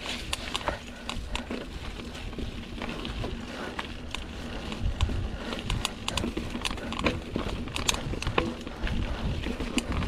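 Mountain bike ridden over a bumpy dirt singletrack: irregular clicks and rattles from the bike's drivetrain and frame over the bumps, over a steady low rumble from tyre and wind on the microphone.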